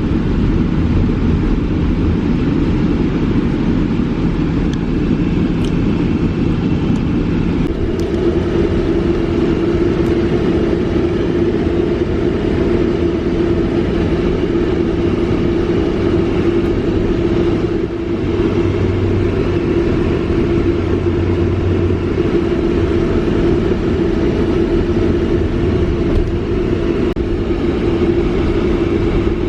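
Motor vehicle running steadily: a low rumble with a steady hum whose pitch shifts and strengthens about eight seconds in.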